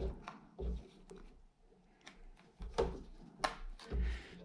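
Handling noise from an aftermarket touchscreen car stereo in its plastic dash-kit mounting bracket: several scattered light knocks and clicks as a cable is fitted behind the screen.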